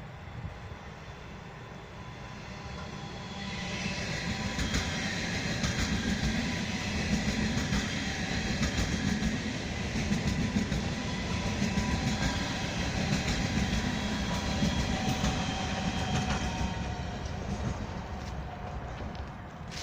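A train passing at the station: wheels clicking over rail joints, with several steady high tones above the rumble. It swells about three and a half seconds in and eases off near the end.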